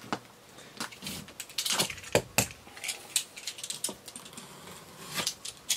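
Utility knife scraping and cutting at packing tape on a cardboard box, with irregular sharp clicks and short scratching strokes as the blade and hands work the taped seam.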